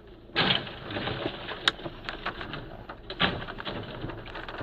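A box van crashing into a roadside wall and overturning, heard through a dashcam: a sudden loud crash about half a second in, then clattering and scraping of scattered debris, with another loud bang around three seconds in.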